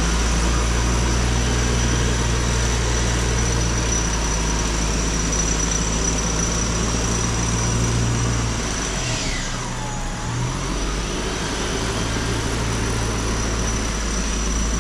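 Off-road 4x4's engine running at low revs, a steady low drone. Its note drops away and shifts briefly about nine seconds in, then settles again.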